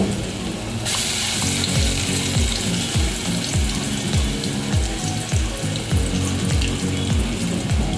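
Hot oil sizzling in a pan with spluttering mustard seeds and curry leaves; the sizzle grows louder about a second in. Background music with a low, repeating beat plays under it.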